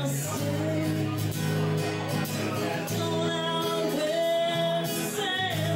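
A woman singing live while playing an acoustic guitar, holding long notes in the melody.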